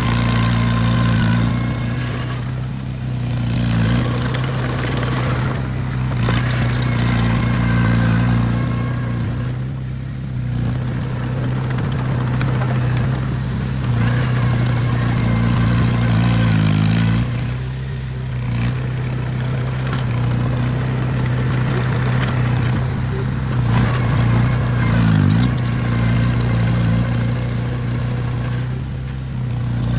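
Diesel engine of heavy construction equipment running steadily, with mechanical clatter that swells and fades every few seconds.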